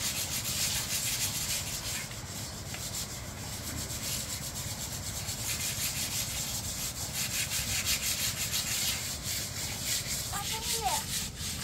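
Several hands scrubbing and scraping old paint off a concrete elephant statue, a continuous scratchy rubbing made of rapid, overlapping strokes.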